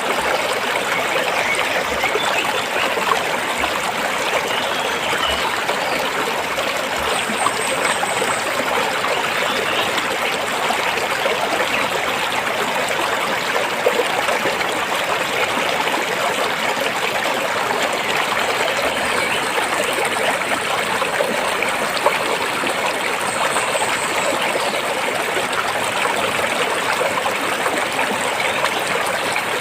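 Stream water flowing steadily over and between rocks, an even, unbroken babble.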